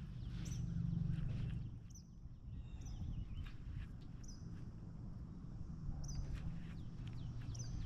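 A bird repeating a short, high, down-slurred chirp about every second and a half, over a steady low rumble.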